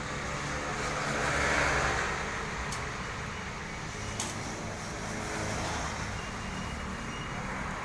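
Truck engine running steadily with a low rumble. A louder rushing swell rises and fades about a second and a half in, and two short sharp clacks come about three and four seconds in.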